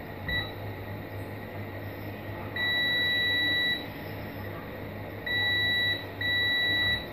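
Digital multimeter's continuity buzzer beeping as the probes touch capacitor pads on a phone motherboard: one short chirp, then three longer steady high beeps. Each beep means the probed point is connected to ground, which is how a short on a dead phone's board is traced.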